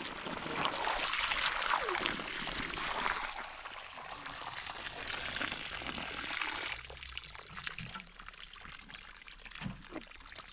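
Water pouring from a plastic jerrycan and a garden hose and splashing into a puddle on a heap of sand and gravel that is being wetted for mixing. The pour stops sharply about seven seconds in, leaving a quieter trickle.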